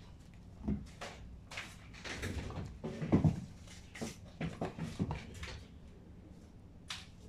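Irregular handling noises on a work table: light knocks, taps and rustles of objects being picked up and set down, with the loudest knocks about three seconds in and a single click near the end.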